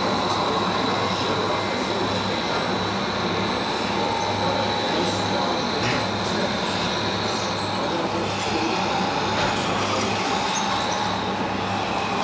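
Steady din of radio-controlled model trucks and construction machines running, with a thin high whine through the first half and voices in the background.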